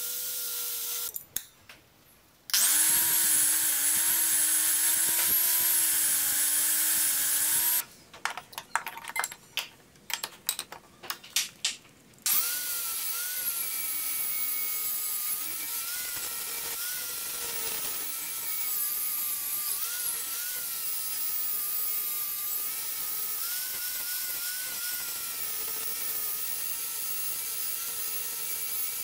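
Makita angle grinder running with an abrasive disc, grinding rust off a steel hacksaw frame; the motor's whine wavers in pitch as the disc is pressed on. It cuts out briefly near the start and is chopped up for a few seconds in the middle.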